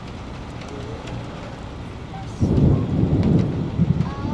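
Steady rain hiss, then about halfway through a sudden loud clap of thunder from a nearby lightning strike, breaking into a low crackling rumble.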